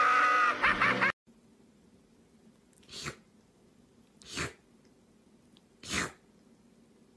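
A kitten sneezing three times, short breathy sneezes about a second and a half apart. Before them, a loud pitched call cuts off abruptly about a second in.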